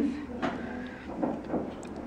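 Faint handling noise of a hard plastic anatomical model being held and turned in the hands, with a light tap about half a second in.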